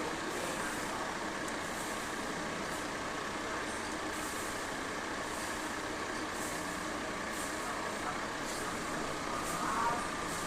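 Steady background noise of road traffic, with faint light ticks and a brief swell near the end.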